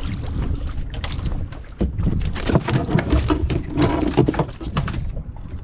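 A large gaffed fish hauled aboard a fibreglass boat, thrashing against the hull floor: a rapid, irregular run of knocks and slaps from about a second in, stopping shortly before the end.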